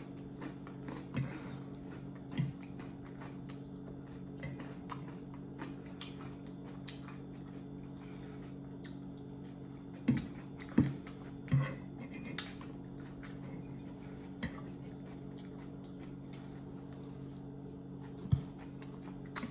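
Mouth sounds of someone eating beef short ribs and mashed potato, with scattered short clicks and knocks of utensils or dishes, the loudest a cluster of several in the middle and one more near the end. A steady low hum runs underneath.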